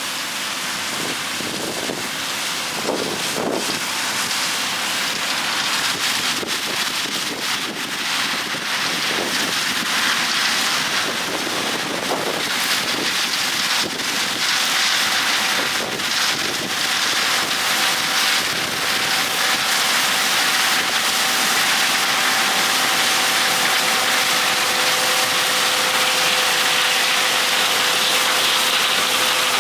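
John Deere combine running while harvesting corn, heard as a steady, rain-like hiss of machine and crop noise, with a steady whine joining about halfway through.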